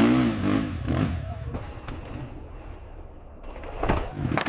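Dirt bike engine revving, the sound fading away over the next couple of seconds, with sharp knocks near the end.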